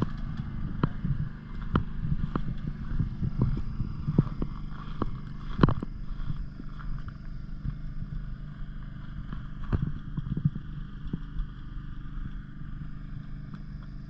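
Footsteps crunching irregularly on snow-covered lake ice, over a steady low rumble.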